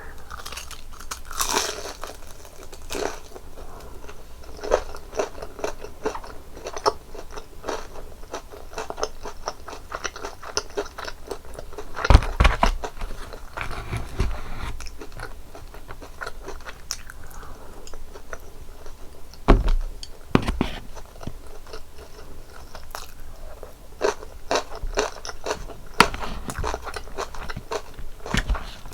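Close-miked eating of crispy cheese tonkatsu: crunching bites through the fried breadcrumb crust and chewing, with many crackly crunches and two loud bites about twelve and nineteen seconds in.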